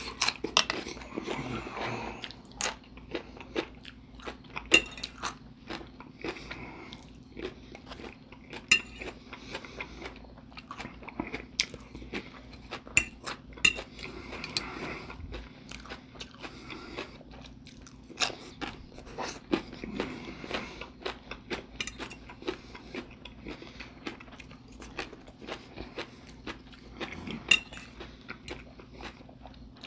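A person chewing and crunching mouthfuls of chopped salad with cabbage and almonds, close to the microphone, with many sharp crunches and clicks throughout.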